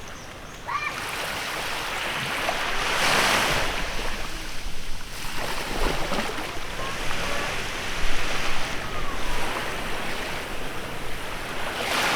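Small waves washing onto a beach, the surf swelling and falling back every few seconds.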